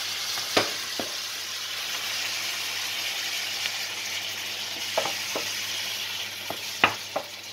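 Spinach, freshly added with a little of its cooking liquid, sizzling and frying in a pan with onion and tomato while a wooden spoon stirs it. The spoon knocks against the pan a few times, loudest near the end.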